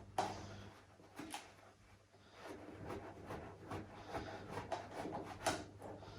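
Screwdriver driving the small screw back into the plastic battery cover of a baby rocker's vibration unit: a few light plastic clicks, then a run of small, fairly regular clicks and scrapes as the screw is turned.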